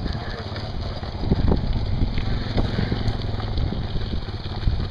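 Quad ATV towing a homemade wheeled bench cart along pavement: engine running under rumbling, irregular knocks from the cart's frame and wheels, with wind buffeting the microphone.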